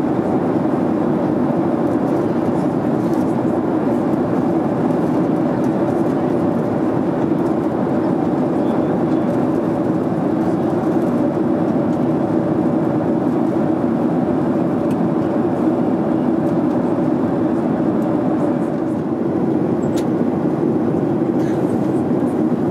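Steady drone of a Boeing 737's jet engines and rushing airflow, heard inside the passenger cabin in flight.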